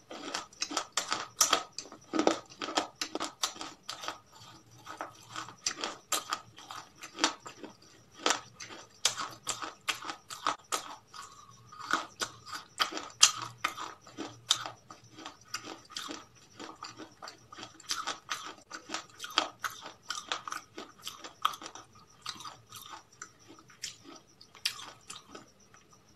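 Close-up eating sounds: crisp crunches and chewing of crispy fried chicken, many irregular crunches in quick succession.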